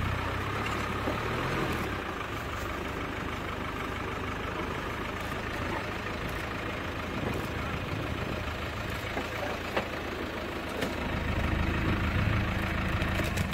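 Open safari game-drive vehicle's engine idling with a steady low rumble, a few faint clicks over it.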